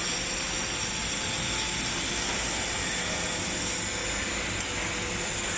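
Hydraulic scrap metal baler's power unit running steadily: an even machine hum with several constant whining tones, one of them high-pitched.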